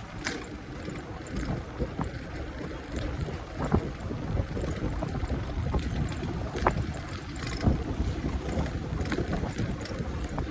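Wind rumbling on the microphone over outdoor city ambience, with a few scattered sharp clicks.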